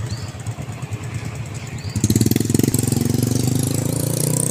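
Motorcycle engine running at idle with a low pulsing, then about halfway through a louder engine sound comes in suddenly and holds steady as the bikes get ready to pull away.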